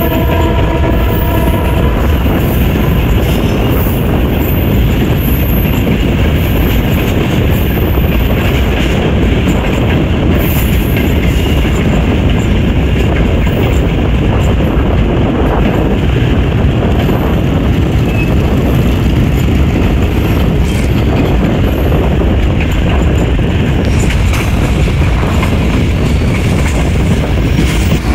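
A passenger train running along the track, heard from on board. Its wheels and carriages make a steady, loud rumbling noise.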